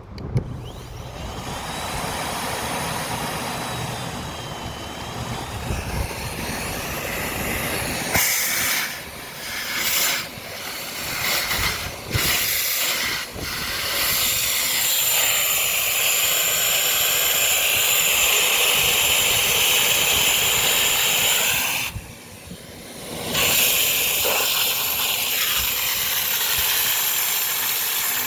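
Miele S5980 Capricorn 1200-watt canister vacuum cleaner switched on with a click, its motor spinning up over the first couple of seconds into a steady, loud airy hiss. The sound dips several times in the middle and drops out briefly about 22 seconds in.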